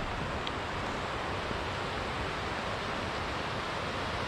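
Steady rushing outdoor ambience: an even hiss with a low rumble underneath, with no distinct events.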